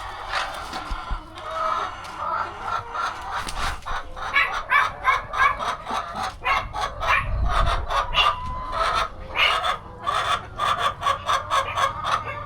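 Flock of laying hens clucking, with short calls coming thick and fast from about four seconds in.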